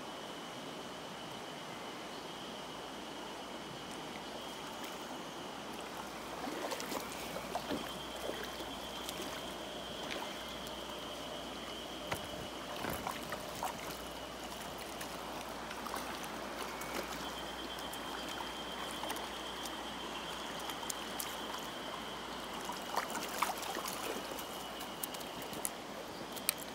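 Shallow stony river running steadily. From about six seconds in, scattered short splashes and sharp ticks come and go as a small rainbow trout is played and brought to the net. A thin, high, steady tone sounds on and off.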